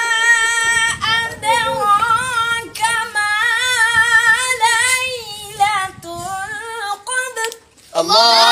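A boy's high voice chanting Quran recitation in melodic tajwid style, long wavering ornamented notes held across phrases with short breaks between them. After a brief pause near the end, a louder voice comes in.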